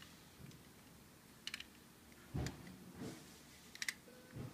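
Faint, scattered clicks and soft knocks of small toy cars being handled: a quick double click about a second and a half in, two soft thumps, then a few more clicks near the end.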